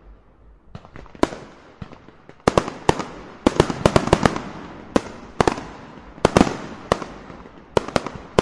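Fireworks: a rapid string of aerial shell bursts, sharp bangs one after another and sometimes overlapping, each with a fading tail. A faint rumble comes first, and the bangs start about a second in.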